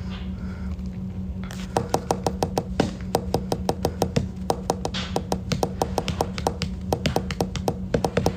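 Rapid, irregular run of short tapping clicks, like fingers typing, starting about a second and a half in, over a steady low hum.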